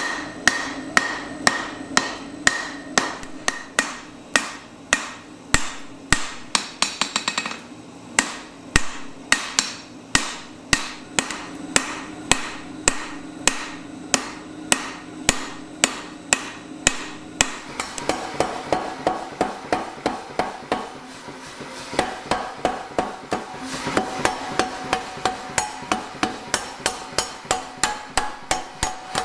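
A hand hammer striking a red-hot iron bar on a steel anvil, roughly two blows a second, with the anvil ringing after each blow. About two-thirds of the way in this gives way to a power hammer pounding the bar between its dies in a faster, even run of about four blows a second.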